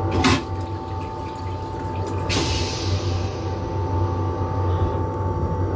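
Commuter-train toilet flushing into its stainless-steel bowl: a sharp burst about a quarter second in, then a hiss of rinse water about two seconds in. A steady hum from the moving train runs underneath.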